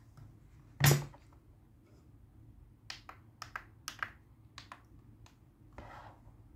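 Plastic buttons on a Doorsafe 4300 intercom monitor clicking under a finger: about eight short clicks between about three and five seconds in, after a single louder knock about a second in.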